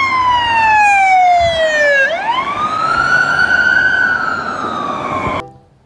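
Police siren wailing: one slow downward sweep, then a quick rise into a long tone that sags slowly before cutting off suddenly.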